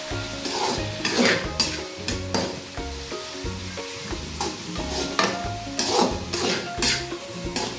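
Chopped capsicum, onion and cabbage stir-fried in a hot pan with soy sauce and vinegar: a light sizzle under repeated, irregular scraping strokes as the vegetables are stirred and tossed.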